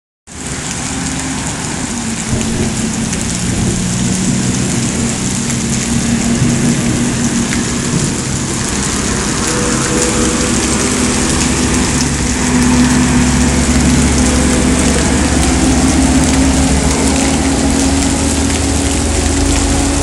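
Heavy rain falling and pattering on surfaces: a dense, steady hiss, with a low steady hum underneath.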